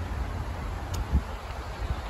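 Wind buffeting the microphone outdoors: a steady low noise with two short low gusts, about a second in and near the end.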